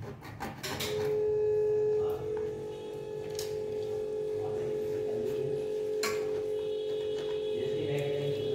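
A loud, steady, horn-like tone with overtones starts about a second in, steps slightly higher in pitch about two seconds in and is held on. A few faint knocks come through beneath it.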